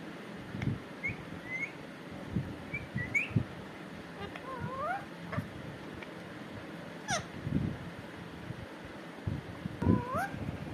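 Pet parrot calling: short high chirps, then several rising, drawn-out calls and one quick falling call, with dull low thumps scattered throughout.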